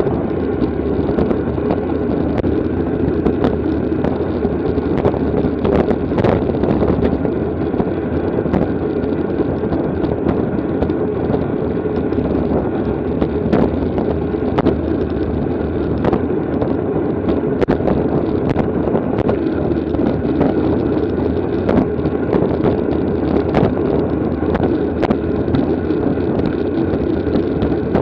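Wind rushing over a camera carried on a racing bicycle: a steady, loud rumbling noise, with scattered light clicks and ticks through it.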